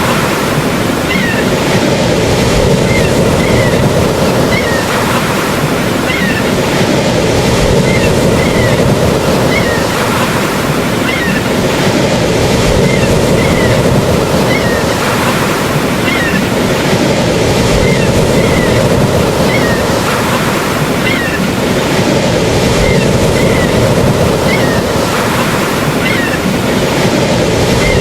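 Ocean surf: a steady, dense rushing of waves with no single breaker standing out. Faint short chirps recur about once a second over the wash.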